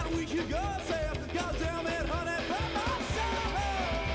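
Psychobilly-style rock and roll song with electric guitar, a steady drum beat and singing.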